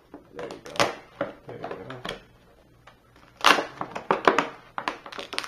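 Clear plastic clamshell packaging being ripped open by hand, with sharp cracks and crinkling; the loudest burst of cracking comes about three and a half seconds in as the plastic is torn away.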